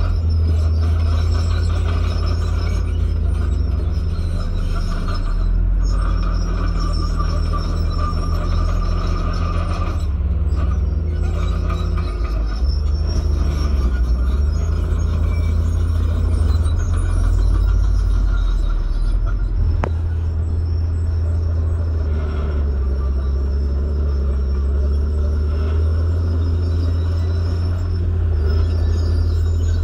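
Heavy diesel engines of a tipper dump truck and a crawler bulldozer running steadily with a deep rumble while the truck's bed is raised to tip its load; a brief click about two-thirds through.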